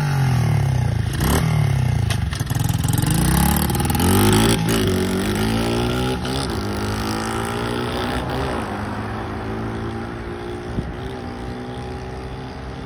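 SSR 70 pit bike's small four-stroke single-cylinder engine on its stock exhaust, revving up several times as the bike pulls away, then getting steadily fainter as it rides off into the distance.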